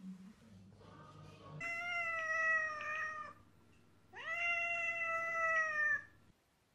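Domestic cat meowing: two long, drawn-out meows, the second starting with a quick rise in pitch.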